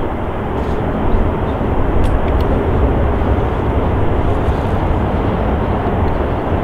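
Panavia Tornado jets' twin RB199 turbofan engines running at high power on the runway, with their exhaust blasting up smoke and dust. A steady, dense jet noise, heaviest in the deep low end.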